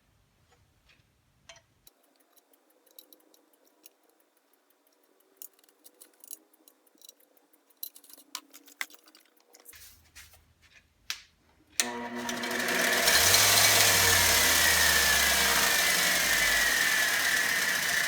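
Scattered small clicks and taps of parts being handled and adjusted, then about twelve seconds in a 2x42 belt grinder is switched on: its motor spins up within about a second and runs steadily with a hum and the whirr of the running belt.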